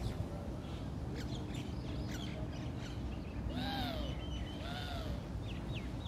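Birds calling: two drawn-out calls about a second apart near the middle, each rising then falling in pitch, with short thin chirps scattered around them.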